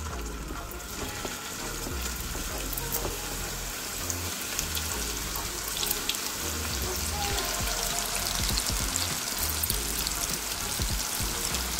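Chicken balls deep-frying in hot oil in a kadai: a steady sizzle with fine crackling that grows fuller and a little louder as more balls go into the oil.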